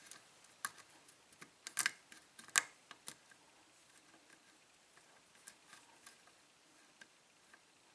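Faint, sharp metallic clicks and ticks of a lock pick working the pin stack of a 5-pin Norwalk pin-tumbler cylinder lock. They cluster in the first three seconds, then thin out to a few scattered ticks.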